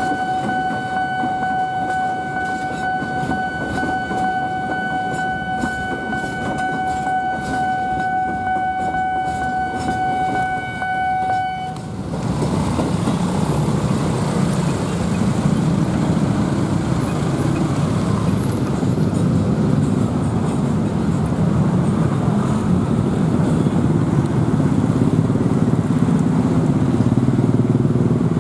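Level-crossing warning alarm sounding one steady tone while a freight train of flat wagons clatters past. The alarm cuts off about twelve seconds in, and the engines of many motorcycles and cars take over, growing louder as traffic crosses the tracks.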